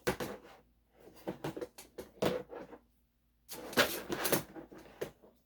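Bursts of rustling and clattering as small fidget toys and packets are handled and put away into storage drawers, in three bouts, the last about three and a half seconds in and the loudest.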